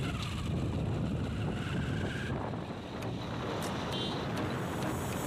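Motorcycle engine running under way with wind rushing over the microphone; the engine note rises over the first couple of seconds, then drops off.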